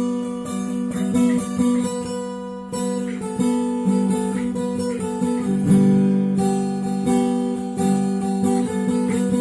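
Background music: acoustic guitar played with plucked and strummed chords.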